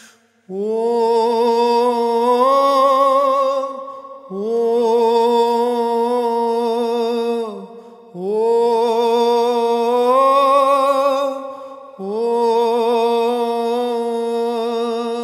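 Song music: a wordless vocal line sung in four long held phrases with vibrato, each stepping up in pitch partway through, over a faint steady drone.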